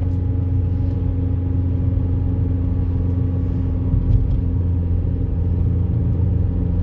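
Volkswagen Lupo driving along, heard from inside the cabin: a steady engine drone that holds an even pitch, over constant tyre and road noise.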